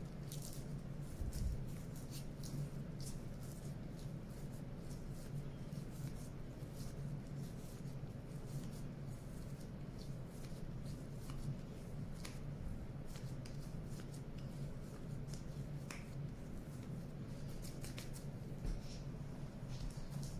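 Hands kneading sticky cold porcelain clay made from rice flour and white glue: faint, irregular tacky clicks and crackles as the dough is squeezed and pulled apart. A steady low hum runs underneath.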